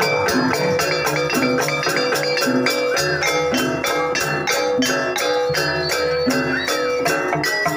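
Gamelan music accompanying a jaranan barong dance: pitched metal percussion plays steady repeated notes over a fast, even beat of about four or five strokes a second.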